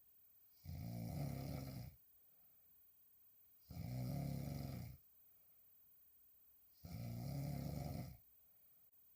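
A woman snoring while lying on her back: three snores, each about a second long, about three seconds apart, with quiet breathing gaps between them.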